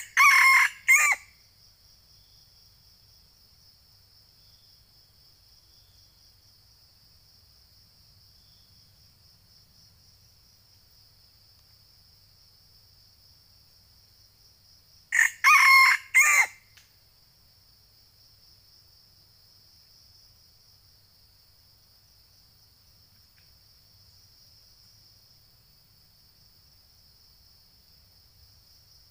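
Red junglefowl rooster crowing twice, about fifteen seconds apart, each crow about a second long. A steady high insect drone runs underneath.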